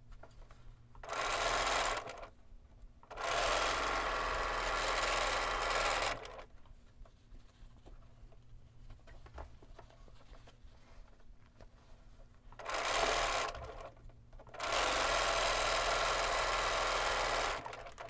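Bernina B 770 Quilters Edition sewing machine stitching seams in four steady runs. A short run comes about a second in, then one of about three seconds. Another short run and a second three-second run come in the latter half, with quiet pauses between the runs.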